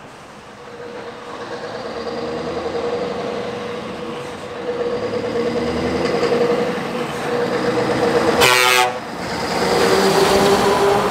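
Lorry approaching on the motorway, its steady whine growing louder. A short horn toot sounds about two-thirds of the way through, and the whine then drops in pitch as the lorry passes.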